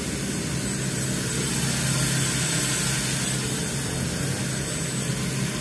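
Steady mechanical hum over an even hiss from a powered-up Walter Helitronic Mini Power CNC tool and cutter grinder, getting slightly louder around the middle.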